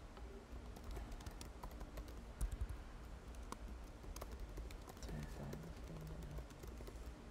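Typing on a computer keyboard: a quick, irregular run of key clicks as a line of text is entered.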